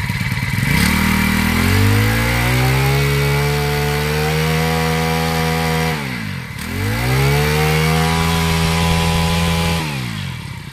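Honda GX31 four-stroke brush cutter engine revved up from idle and held at high revs, dropping off briefly about six seconds in, revving up again, then falling back to idle near the end. It runs smoothly.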